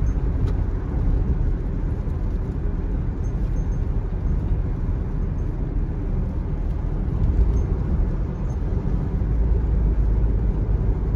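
Car driving along a rain-wet highway, heard from inside the cabin: a steady low rumble of tyres and running gear on the wet road, with a few faint ticks.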